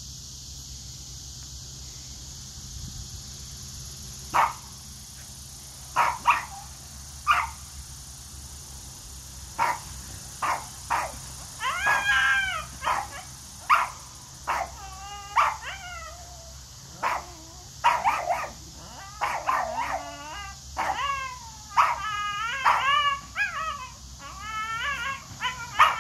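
A dog barking at a cat. Single short yips begin about four seconds in, then come more and more often, turning into wavering, whining yowls that rise and fall in pitch.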